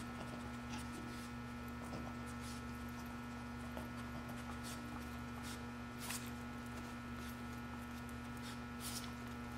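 Steady electrical hum throughout, with a few faint short sniffs and scuffs scattered through it as a Boston Terrier noses at upturned plastic cups.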